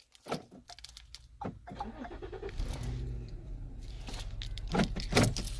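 A few light clicks, then a car engine starting by remote start and idling with a steady low hum from about two and a half seconds in. A couple of sharper knocks come near the end.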